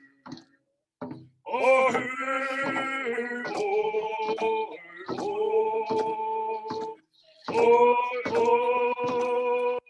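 Voices singing a ceremonial song on long held notes over a steady hand-drum beat. The song starts about a second and a half in and breaks briefly for a breath near the end.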